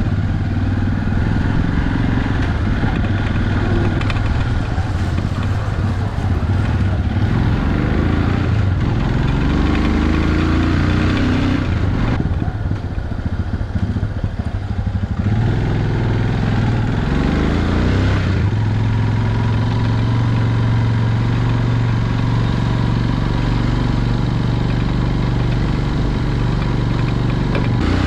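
A motor vehicle's engine runs continuously, heard from close by, with its tone shifting as it changes speed and a slight drop in loudness about halfway through.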